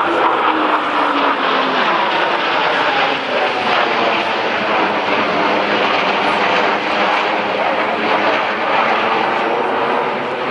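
Blue Angels F/A-18 Hornet jets flying a low pass, a loud steady jet roar. Its pitch falls over the first couple of seconds as they go by.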